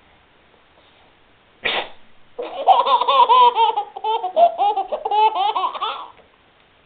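A single short sneeze about a second and a half in, then a baby laughing hard for about four seconds in a long run of quick laughs that stops abruptly.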